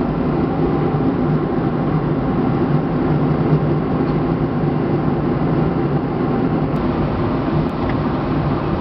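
Steady drone of engine and airflow noise in the cabin of a Boeing 757-200 airliner in flight, with a low steady hum underneath.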